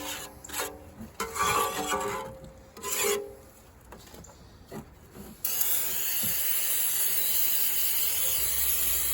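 A paint scraper scraping thick oil sludge out of an engine oil pan in several short strokes. From about five seconds in, a steady hiss takes over.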